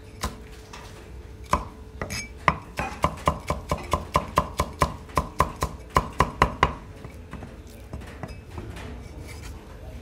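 Cleaver chopping spring onions on a thick wooden tree-trunk chopping block: a run of sharp knocks, about four a second, that stops about two-thirds of the way through.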